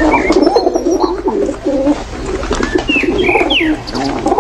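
A flock of pigeons cooing continuously in overlapping low, wavering notes. A few short, higher bird chirps and whistles sound over them, several of them about three seconds in.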